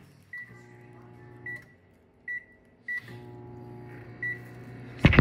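Microwave oven running with a steady hum that stops for a moment and then starts again, while its keypad gives several short high beeps. A sharp knock near the end.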